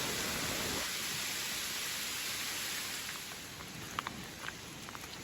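Heavy rain falling steadily, a continuous hiss; it drops a little in level about three seconds in, and a few close drops tick sharply near the end.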